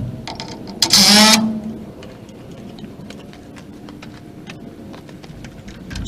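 A short, loud whir from a power drill about a second in, followed by light taps and knocks of work on the boards.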